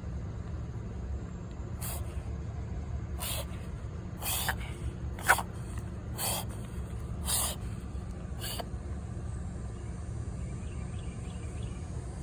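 A pet coughing: seven short, breathy, hacking coughs roughly a second apart, then stopping.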